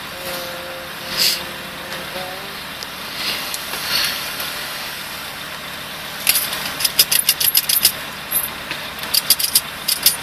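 Coins clinking and jingling in quick clusters from about six seconds in, as cash change is handled, over the steady hum of the car's engine idling.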